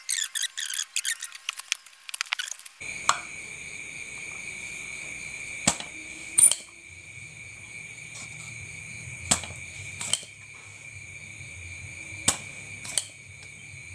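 Spring-loaded desoldering pump snapping as solder is sucked from a CRT TV circuit board, during removal of the faulty flyback transformer. About seven sharp clicks start about three seconds in, irregularly spaced, over a steady high-pitched whine.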